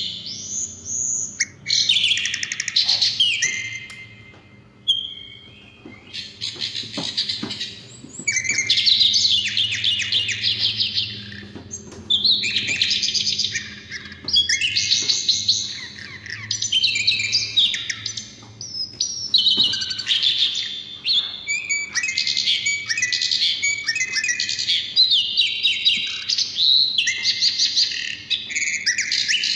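Sikatan londo flycatcher singing a fast, chattering song of high twittering phrases in bursts of a few seconds with short pauses between, over a faint steady low hum.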